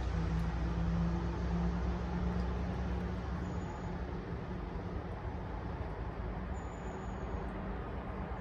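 Low, steady rumble of a passing motor vehicle, its engine hum fading away over the first three seconds.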